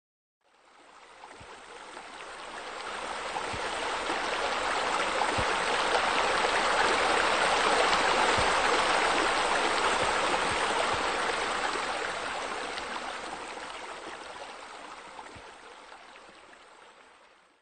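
Steady rush of running water, as from a pool's wall water feature spilling into the pool. It fades in slowly, is loudest midway and fades out near the end.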